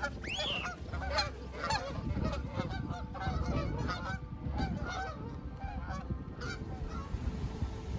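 Canada geese honking, many calls in quick succession from several birds as they take flight, stopping about six and a half seconds in. Wind rumbles low underneath.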